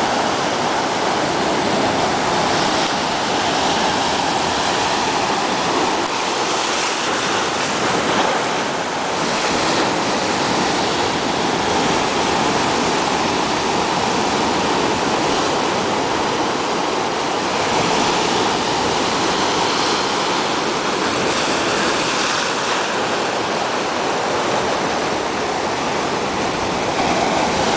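Heavy surf breaking on a rocky shore, white water churning and washing around a boulder: a continuous loud rush that swells briefly every few seconds as waves break.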